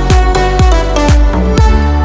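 Electronic dance background music with a steady kick-drum beat of about two beats a second under sustained synth tones.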